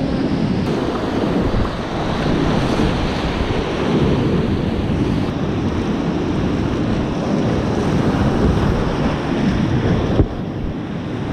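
Whitewater rapids rushing and splashing around a kayak, close on the microphone, with water and wind buffeting it. A single sharp knock about ten seconds in, after which the rush is a little quieter.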